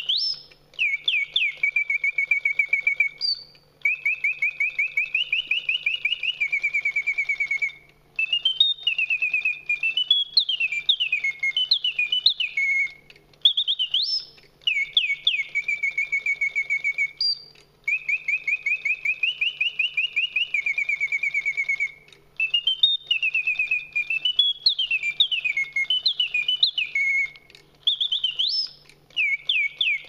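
Karl Griesbaum singing bird cage automaton whistling its mechanical birdsong through a bellows-blown piston whistle. Phrases of rapid chirps, up-and-down warbles and level runs of quick repeated notes are broken by short pauses, with a faint low hum underneath.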